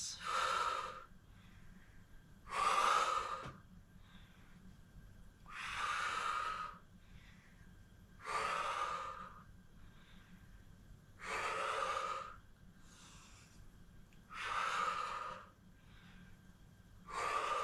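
A woman breathing hard through a kneeling leg-extension Pilates exercise: a strong breathy exhale about every three seconds, paced by the repetitions, with fainter inhales between.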